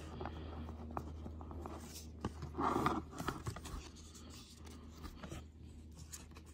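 Cardboard trading cards being slid and shuffled through the hands: light scrapes and small clicks as each card is moved to the back of the stack, with one louder brief sound about three seconds in.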